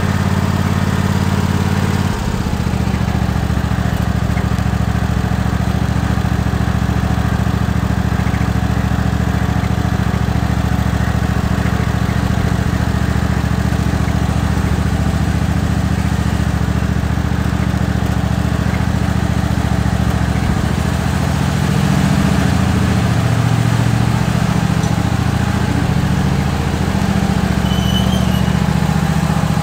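Small tractor engine running steadily while the tractor is driven. Its note changes about two seconds in, and again about two-thirds of the way through, where it gets a little louder and wavers in pitch.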